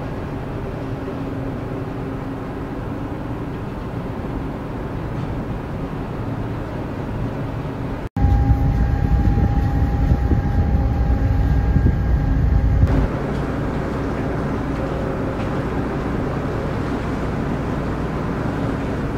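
A passenger ferry's engines running with a steady low drone and hum. The sound is heard on deck with wind noise. About eight seconds in it jumps suddenly to a louder, deeper rumble with a steady high tone for about four seconds, then drops back to the steady drone.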